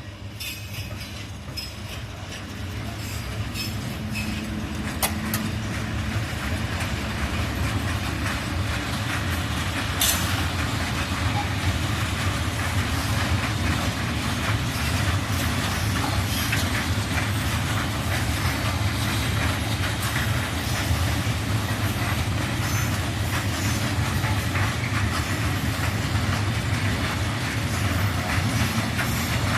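Freight train of Eas open wagons, hauled by class 183 electric locomotive 183-027, rolling past. The rumble grows over the first several seconds, then holds steady with wheels clattering over the rail joints and a sharp clank about ten seconds in.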